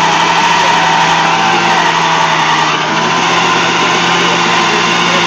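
Liquid-cooled two-stroke Polaris Indy 500 snowmobile engine in a lawnmower running loud and steady at high revs, its pitch wavering slightly, with a brief dip in level about halfway through.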